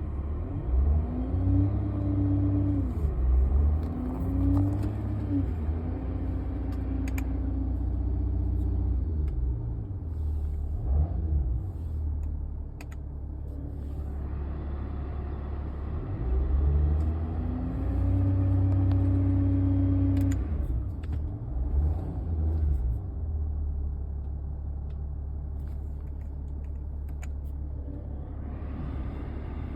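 Mercedes-Benz E280 CDI (W211) V6 diesel engine running, with a pitched whine that rises and holds for a few seconds at a time, several times, over a steady low engine rumble. The whine comes in at part load and is taken for the AC compressor or its pulley; the owner is unsure which is bad.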